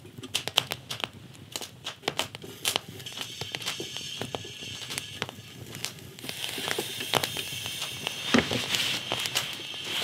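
Wood fire burning in a small folding steel camp stove, crackling with many irregular sharp pops. A steady hiss joins after a few seconds and grows louder about six seconds in, as a pot heats over the flames.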